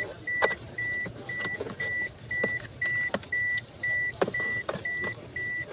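Steady electronic beeping at one high pitch, about two beeps a second, with scattered sharp clicks and knocks from work on the car's wiring.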